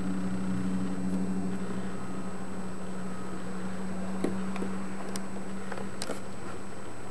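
A steady low electrical or mechanical hum over a faint hiss, with a few soft clicks.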